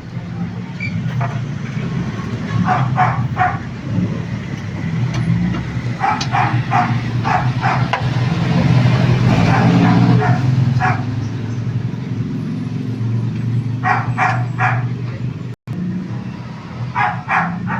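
A dog barking in several runs of three to five quick barks, over a steady low hum of a motor running.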